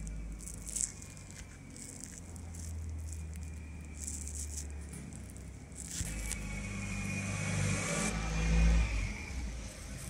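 Four-stroke JM Motors scooter engine running, with a strange noise from the rear transmission and irregular clicks; about six seconds in the engine note changes and the sound builds louder. The noise comes from worn clutch bearings and damaged clutch rubber.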